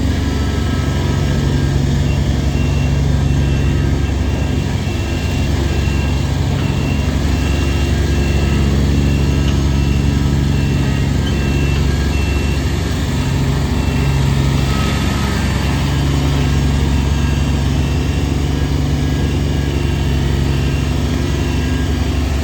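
Kubota BX25D compact tractor's three-cylinder diesel engine running steadily.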